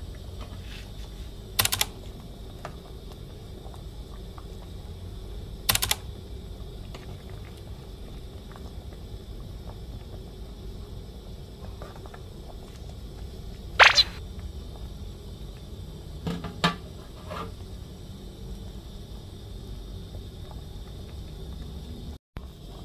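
A pot of southern Thai sour curry with snapper and pineapple boiling, a steady low rumble under it, with a few sharp clicks about 2, 6 and 14 seconds in, the one at 14 seconds the loudest.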